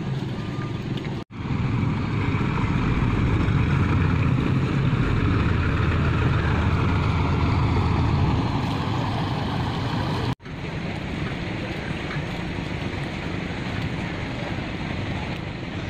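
Engine of a Mahakam river taxi boat running steadily as the boat comes alongside the landing, louder in the first half and easing off about two-thirds of the way through, over river water and wind noise. The sound cuts out for an instant twice.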